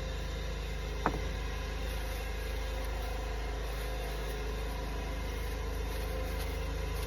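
Steady low machine hum, like an engine or motor running, with a single sharp click about a second in.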